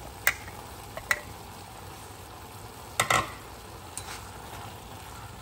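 Tomato and loofah chunks stir-frying with a steady sizzle in an enamelled cast-iron pot, with a few sharp knocks as the pieces are tipped in and stirred with wooden chopsticks; the loudest knocks come about three seconds in.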